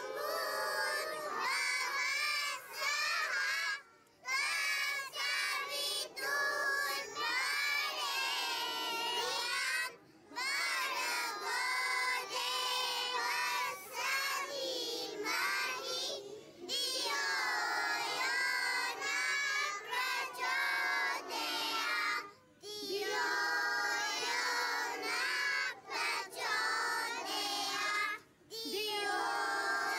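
A small group of young girls singing a prayer in unison into a microphone, without accompaniment, in phrases broken by short breathing pauses about every six seconds.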